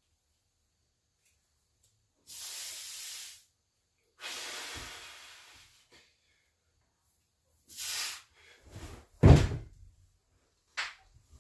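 Three sharp hissing breaths, each about a second long, forced out through the teeth by a lifter straining through heavy dumbbell press reps. About nine seconds in comes a heavy thud, the loudest sound, followed by a few lighter knocks.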